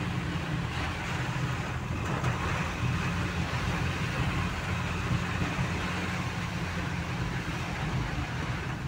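Vehicle engine running steadily with a low hum, heard from inside the cab, under a constant hiss of heavy rain on the windshield and roof.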